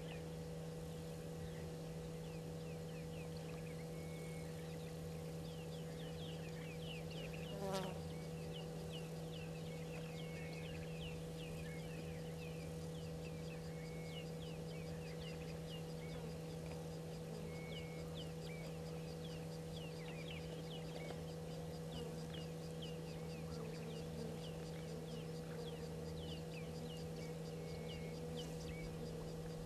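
Outdoor bush ambience: a steady low hum under a continuous run of short, high, falling chirps from insects, with one brief louder sound about eight seconds in.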